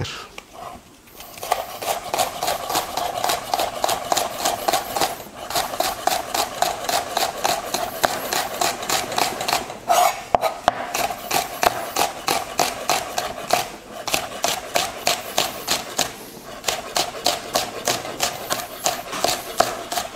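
Chef's knife slicing a spring onion into thin rounds on a plastic cutting board: quick, even strokes through the onion onto the board, about four a second, with a few short pauses. A steady hum runs underneath.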